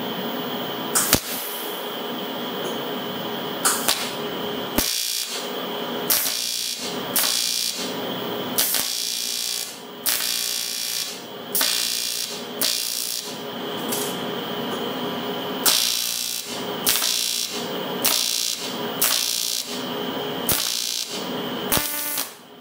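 TIG welding arc on cast aluminum, running on AC, buzzing in short repeated bursts about once a second over the steady hum of the welding machine.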